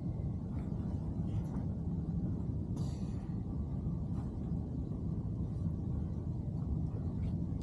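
A boat's motor runs steadily with a low rumble. A short hiss comes about three seconds in.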